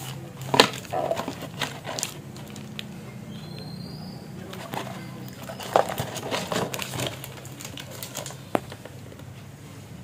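Plastic wrapping crinkling and a small cardboard box being handled: scattered rustles and clicks, loudest about half a second in and around six seconds, with one sharp click near the end. A steady low hum runs underneath.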